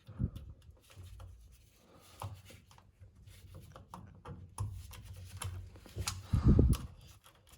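Light clicks and rubbing from hands working small metal parts and cables, with one brief, louder low sound about six and a half seconds in.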